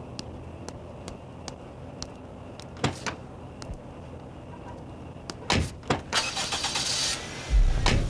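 Hard-soled footsteps on pavement, followed by a car door being opened and then shut with two heavy thuds, then a second of clothing and seat rustling as someone settles in. A deep low rumble comes in near the end.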